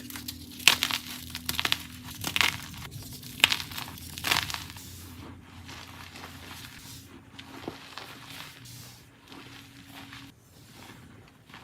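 Blocks of dyed gym chalk being crushed and crumbled: five or so sharp crunches in the first four seconds, then softer, quieter crumbling.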